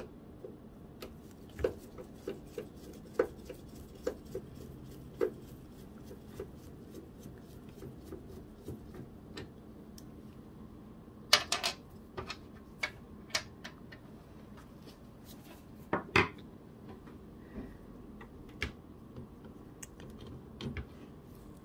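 Small scattered clicks and taps of a screwdriver backing out the screws that hold the fuser roller unit in a laser printer's metal frame, with a short run of louder metallic clinks about halfway through and another a few seconds later.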